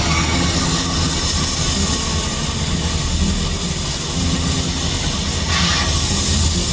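Heavy machinery running steadily with a low hum, and a brief hiss about five and a half seconds in.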